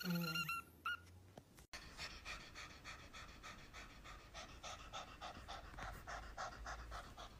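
A kitten's brief, high meow in the first second. After a cut, a ginger tabby cat pants rapidly with its mouth open and tongue out, in short even breaths about three to four a second.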